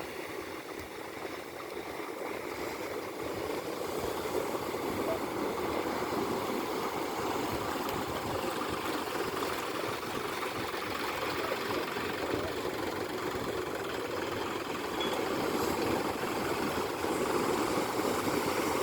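Boat engine running steadily, growing gradually louder.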